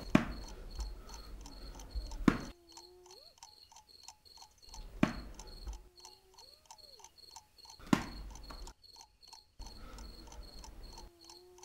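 Crickets chirping as steady night ambience, a high pulse repeating about three times a second. Sharp strokes come every few seconds and are the loudest sounds, and there are a few short gliding whistle-like tones.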